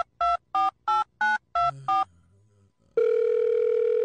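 Touch-tone phone keypad beeps dialling a number, short two-note beeps about three a second. After a short pause, a steady phone tone, the ringback of the call going through, starts about three seconds in.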